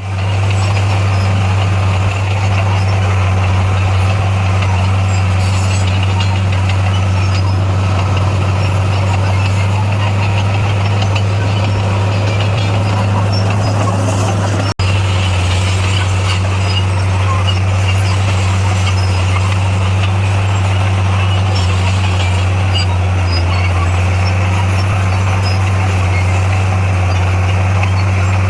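D58A bulldozer's diesel engine running steadily with a deep, even drone, broken by a brief cut-off about halfway.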